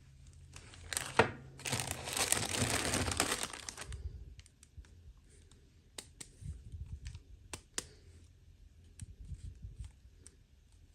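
Toy packaging being torn and crinkled open for about two seconds, after a sharp click. Scattered small clicks and taps follow as the contents are handled.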